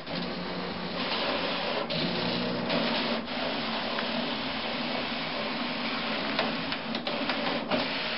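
HP DesignJet 750-series large-format plotter feeding roll paper through during loading: its feed motor runs steadily while the paper rubs over the rollers, with a few sharp clicks along the way.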